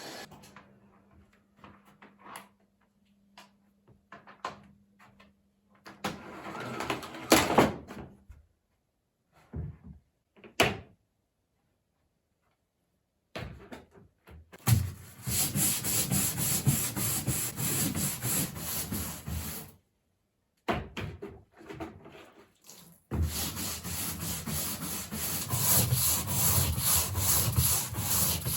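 Scrubbing: a brush or cloth rubbed hard back and forth over a surface in quick, even strokes. It starts about halfway in, pauses briefly, then resumes. Before it come scattered knocks and handling noises.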